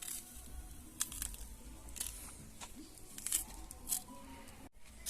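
Bananas being peeled by hand: a few short scraping and tearing strokes, spaced irregularly.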